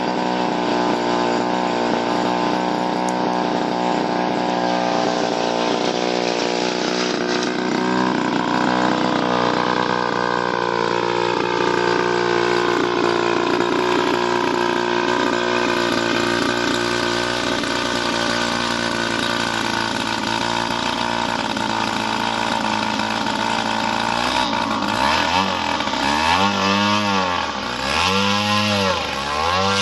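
An RC model airplane's engine running steadily with a buzzing two-stroke tone, its pitch drifting slowly. In the last few seconds the pitch swings up and down several times as the plane, on skis, moves across the snow.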